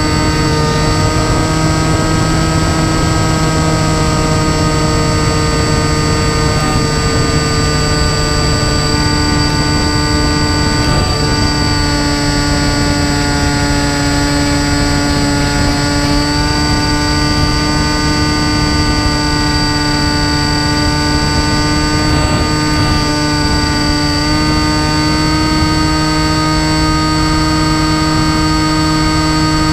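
Brushless electric motor and propeller of an RC flying wing whining steadily in flight, heard from the onboard camera with wind rushing over it. The pitch shifts slightly a few times as the throttle changes.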